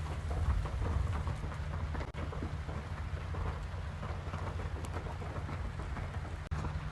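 Steady rain falling, over a low rumble that swells about half a second in.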